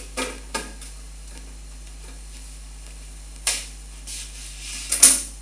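Handling clatter of plastic parts over a steady low hum: two light clicks near the start as the purge tank is refitted in the 3D printer, a sharper knock about three and a half seconds in, and rustling that builds to the loudest knock around five seconds in.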